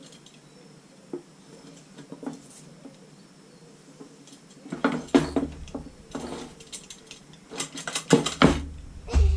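Metal clinking and clattering of wire spokes being worked into a motorcycle wheel's hub and rim: a few light clicks at first, then busier bursts of clinks and knocks over the second half.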